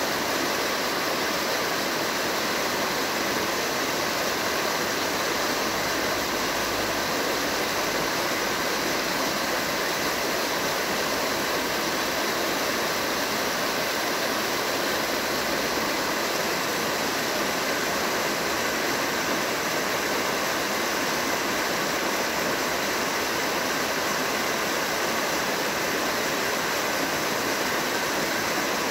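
A small waterfall pouring over a rock ledge and splashing onto the stones of a stone-lined channel. It makes a steady, unchanging water noise.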